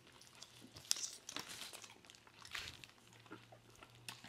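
Paper burrito wrapper crinkling and soft chewing as a person bites into and eats a burrito, with a sharp crackle about a second in, over a faint steady low hum.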